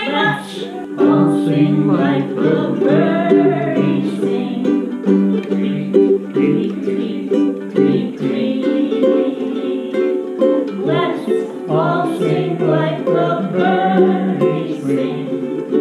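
Ukulele strumming chords as accompaniment, with a wavering lead melody over it.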